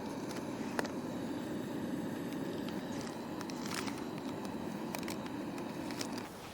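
Backpacking gas stove burner running with a steady hiss under a few light metallic clicks, then cut off abruptly near the end.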